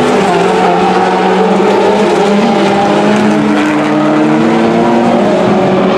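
Several World Rallycross Supercars, turbocharged four-cylinder engines, racing at high revs at once. Their pitches shift up and down as the cars brake and accelerate through the corners.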